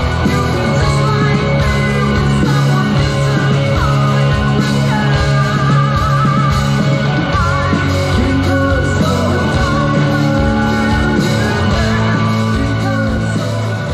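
Live rock band playing through a PA, with a singer, heard from among the audience at an outdoor stage.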